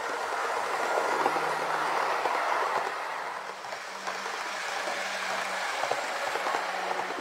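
Hornby City Express three-car electric multiple unit model train running along the track. The wheels rattle on the rails over a faint steady motor hum, louder as it passes close by about a second in.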